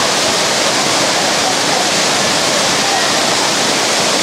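Kothapally waterfall: water pouring down in a steady, loud rush with no let-up, with faint voices of people in the water underneath.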